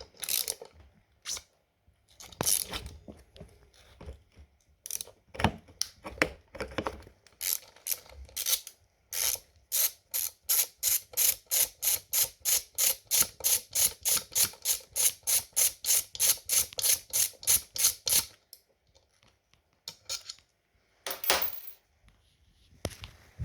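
Ratchet wrench with a socket extension undoing the scooter's axle nuts: a few uneven clicks, then a steady run of about four ratchet clicks a second for roughly nine seconds that stops abruptly as the nut comes free. A brief scraping noise follows near the end.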